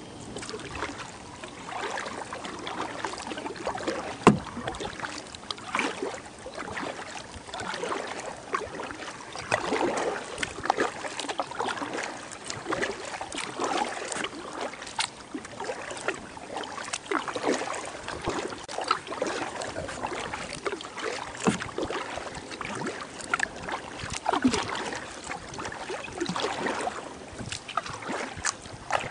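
Kayak paddling on calm river water: the paddle blades dip and splash at an irregular pace, with water dripping off them. There is one sharp knock about four seconds in.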